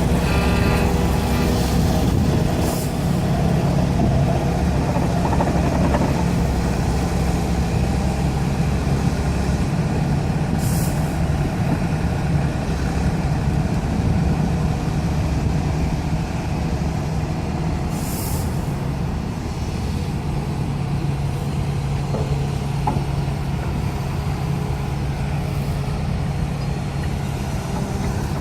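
Daedong DPD850T hydraulic vibratory pile driver running steadily on an excavator boom while driving a steel sheet pile, with a continuous low humming vibration. Short hisses come three times, roughly eight seconds apart.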